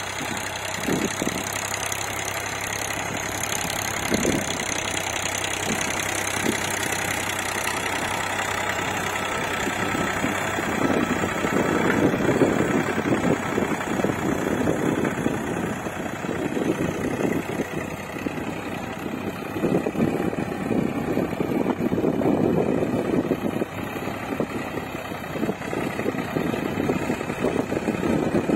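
Farmtrac 35 tractor's diesel engine running steadily while it pulls an 11-tine cultivator through dry soil, with swells in the engine sound coming and going every few seconds from about a third of the way in.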